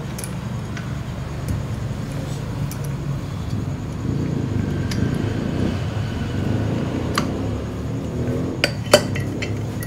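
Metal parts of a PS120 starter motor clinking and rattling as they are shaken and worked together by hand to spread fresh oil, with a few sharp metallic clicks, the loudest near the end, over a steady low hum.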